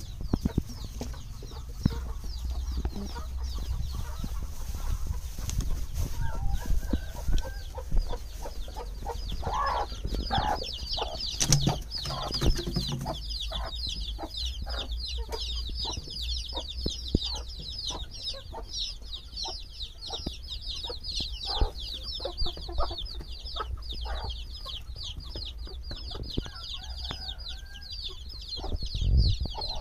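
Hens clucking, joined about ten seconds in by a brood of chicks peeping without a break: a dense run of quick, high peeps.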